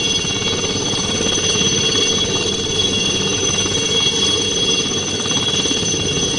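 Helicopter hovering low and close: steady rotor noise with a high, steady turbine whine over it.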